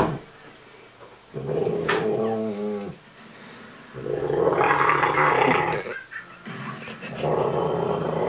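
Rottweiler making drawn-out, growly grumbles, three of them about two seconds each: her way of 'talking' when she is cuddled and rubbed on the head and neck.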